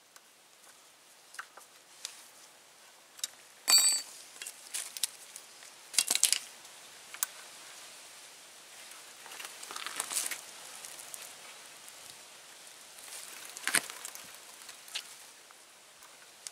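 Metal tools and bolts clinking and clattering in several short bursts while the front brake caliper bolts are being refitted, one clink ringing briefly about four seconds in.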